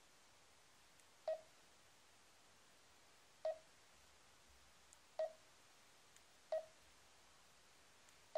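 Garmin Dezl 760 LMT sat nav's touchscreen key beeps: five short mid-pitched beeps, one to two seconds apart, each confirming a tap on the screen as the settings menus are stepped through. A few faint ticks fall between them.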